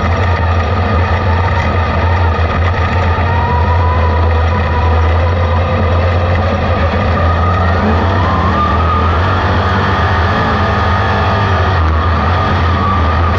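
Sprint car V8 engine running steadily at part throttle, heard from the cockpit; its pitch rises a little about eight seconds in.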